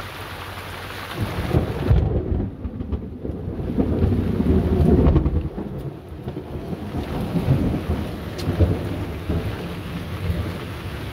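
Rain falling with thunder: a steady hiss of rain, then a loud low rumble of thunder that builds about a second in and swells and fades in waves for several seconds.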